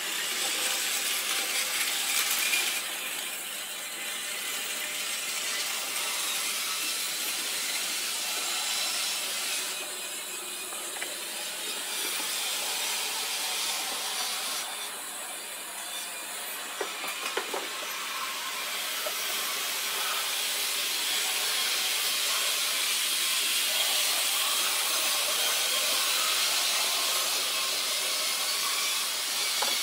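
Model trains running on a layout's tracks: a steady hiss and whir of small wheels and motors, with a few light clicks a little past halfway.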